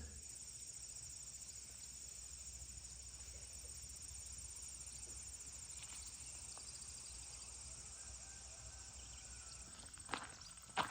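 Faint, steady chorus of crickets, a high pulsing trill. Near the end a few footsteps start.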